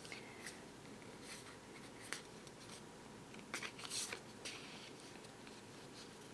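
Playing-card-sized tarot cards being handled: a few faint, short papery slides and flicks as cards are moved through a hand-held fanned deck, the loudest about four seconds in.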